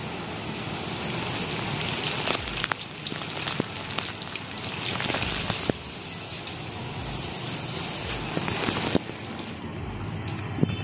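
Heavy rain pouring onto a concrete rooftop: a steady hiss of rainfall with many sharp ticks of single drops striking.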